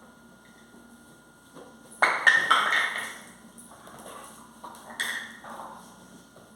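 A dog playing alone with a toy: a clatter of knocks and taps on the floor, with a loud burst about two seconds in and another near five seconds.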